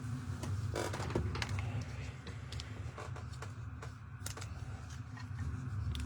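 Trading cards and card packs being handled: scattered light clicks and rustles over a steady low hum.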